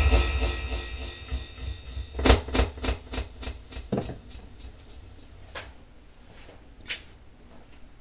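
The last echo of the voice effect dies away, then a tap on the handheld microphone comes back through the delay effect as a string of fading echoes, about four a second. A few separate handling clicks and knocks follow, and a faint steady high tone from the effects rig stops with one of them.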